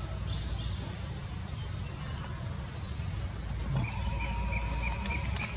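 Outdoor background noise: a steady low rumble with a faint high hiss, joined a little past halfway by a short run of evenly repeated high chirps.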